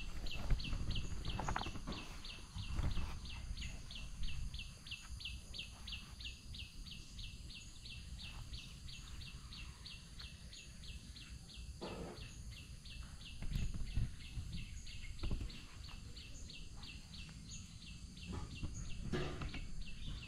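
A small animal's high chirp repeated steadily, about three times a second, over low rumbling with a few louder knocks.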